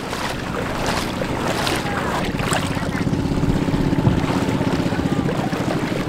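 Motorized bangka (outrigger boat) engine running steadily with a fast, even pulse. Wind is buffeting the microphone.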